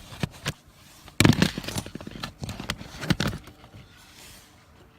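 Clicks and knocks of hand tools and parts being handled, with the loudest clatter about a second in and a few more knocks over the next two seconds.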